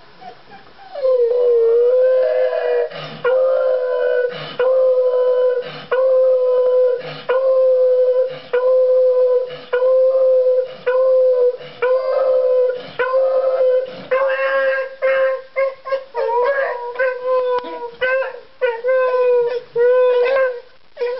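A beagle howling: a long howl held on one steady pitch, broken by a short breath every second or so, turning into shorter, choppier howls in the last few seconds. It is the howling of a dog left alone, from separation anxiety.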